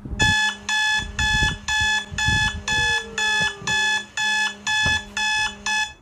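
Smart seat belt alarm beeping: a dozen loud electronic beeps, about two a second, warning that a child is still buckled in the car seat while the parent is away from the car.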